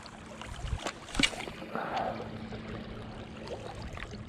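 Small waves lapping against a rocky lakeshore, with wind noise and a few sharp clicks, the strongest about a second in.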